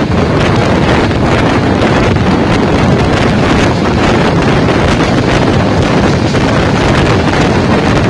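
Loud, steady wind rushing over the microphone at the open window of a moving passenger train, over the rumble of the coaches running on the track.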